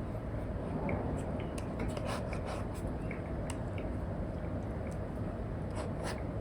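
Stylus tip scratching across a paper-textured screen protector on an iPad in quick, irregular strokes, over a steady background hiss.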